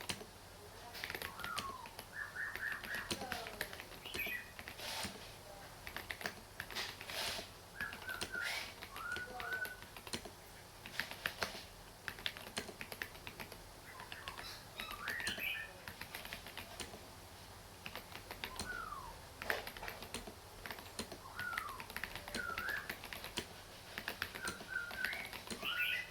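Typing on a mechanical keyboard fitted with a mix of Domikey and SP keycaps: a steady, irregular run of key clicks. Short bird chirps sound behind the typing.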